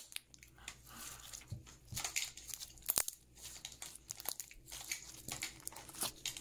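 Stiff, over-activated slime being stretched and pulled apart by hand, giving off a scattered series of small crackles and tearing snaps.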